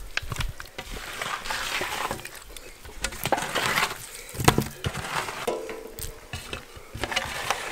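Hands mixing and squeezing pieces of salmon marinated in lemon juice, salt and black pepper on a large metal tray: irregular squishing and slapping with short clicks and clinks against the tray.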